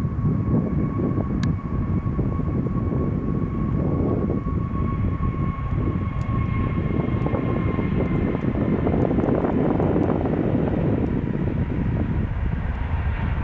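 Jet airliner's engines: a steady heavy rumble with a high turbine whine that fades out about two-thirds of the way through.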